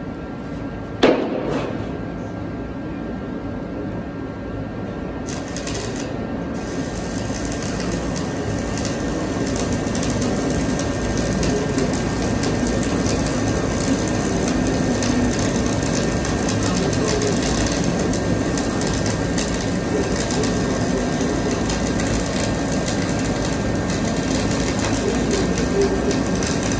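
ESAB Dual Shield 7100 gas-shielded flux-cored wire welding arc crackling steadily, starting about five seconds in, over a faint steady whine. About a second in there is a single sharp knock.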